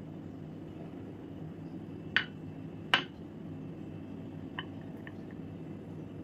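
A plastic spatula knocking against a glass bowl while scooping melted chocolate: two sharp clinks about two and three seconds in, then a few faint ticks. A low steady hum runs underneath.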